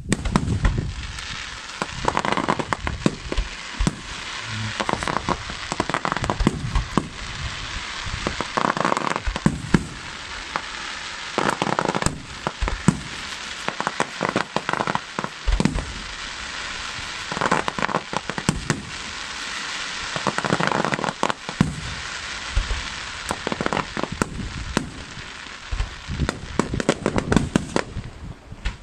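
Aerial fireworks display: shells bursting overhead with repeated sharp bangs over a continuous, dense crackling.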